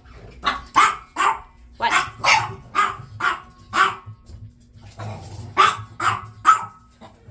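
Puppies barking excitedly in short, quick yaps, about a dozen in all, with a brief pause a little past four seconds in before the barking starts again.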